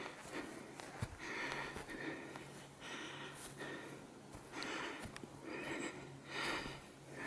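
A hiker breathes close to the microphone while walking a mountain trail, with short breaths about once a second and a few light clicks in between.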